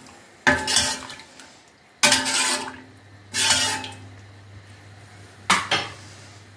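A long metal spoon knocks and scrapes against a stainless-steel pot while stirring tea with milk: four separate clanks, some with a short metallic ring.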